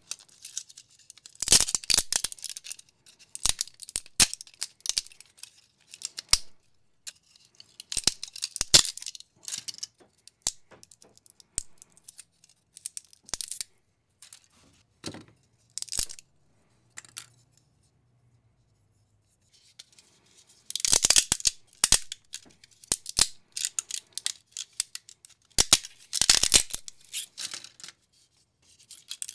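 Hands snapping and peeling 3D-printed plastic support material off a printed figure: bursts of crackling and tearing with many sharp clicks, broken by a quiet pause of about two seconds past the middle.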